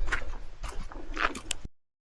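Irregular crunching and scraping footsteps on a gritty, leafy trail, cutting off suddenly to dead silence near the end.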